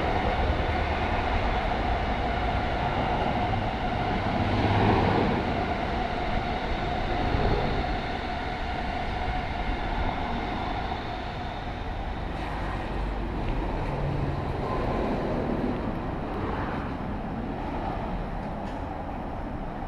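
Keikyu Line train running through a level crossing, with the crossing's warning bell ringing steadily. The train noise is loudest a few seconds in and eases off in the second half.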